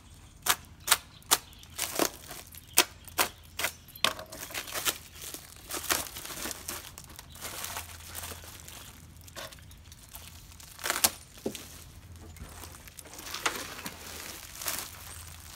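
Plastic stretch wrap and packing tape being cut and ripped off a blanket-wrapped parcel: a quick run of sharp snaps and rips in the first few seconds, then crinkling and rustling of plastic, with another sharp snap about eleven seconds in.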